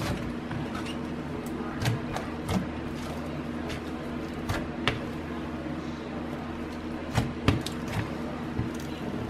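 Slime being kneaded as black clay is worked into a white slime base to make butter slime: soft squishing with sharp wet pops and clicks several times at irregular intervals, over a steady low hum.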